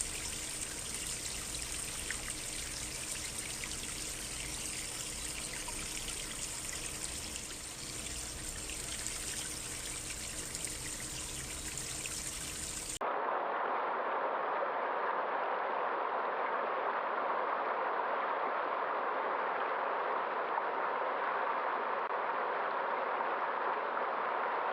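Running water of a small stream, a steady trickling and babbling. About halfway through it cuts abruptly to a different, duller and slightly louder steady rushing noise.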